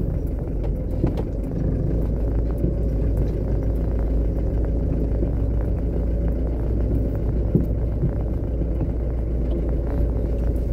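Iveco truck's diesel engine running steadily at low speed as the truck reverses: a constant low rumble with a steady hum.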